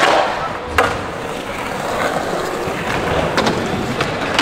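Skateboard wheels rolling on a hard skatepark surface with a steady hiss, broken by sharp clacks of the board hitting the ground: a loud one at the start, another just under a second in, and a few lighter ones later.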